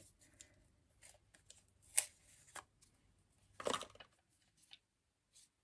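Handling noise from packaging and kit being unpacked: a few separate clicks and short rustles, the sharpest about two seconds in and a brief cluster a little before four seconds.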